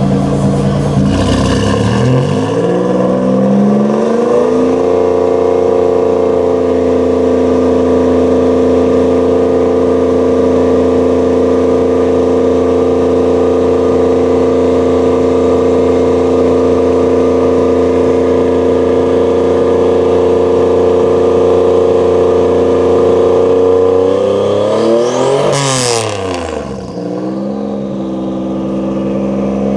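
Nissan 300ZX Z31's VG30ET turbo V6 running: the revs climb in the first few seconds and are held steady at a raised speed for about twenty seconds, then a quick rev up and back down near the end before it settles to a lower steady idle. It is running on old fuel and has spark plug issues.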